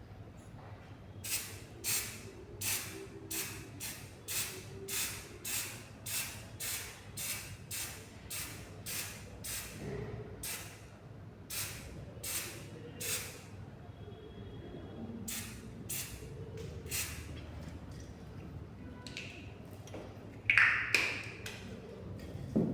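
Aerosol can of solvent-based dye penetrant spraying in short puffs, about one and a half a second, then after a pause three more; this is the penetrant being applied to a weld in liquid penetrant testing. A brief louder noise comes near the end.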